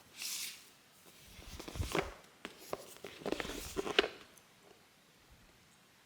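A brief rustle, then about two seconds of scattered light knocks and taps, as of objects being handled, before it settles to quiet room tone.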